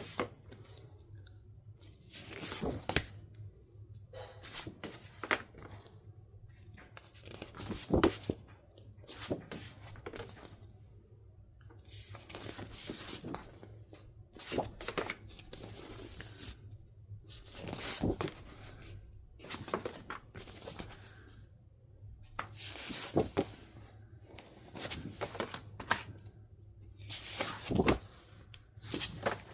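Paper and plastic album packaging being handled: irregular rustling and tearing-like scraping, with two louder knocks about 8 and 28 seconds in.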